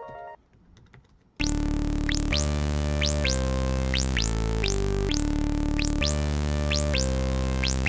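Background music: a soft keyboard piece ends, and after about a second of near silence an electronic synthesizer track starts, with held bass chords and a falling swoosh repeating a little more than once a second.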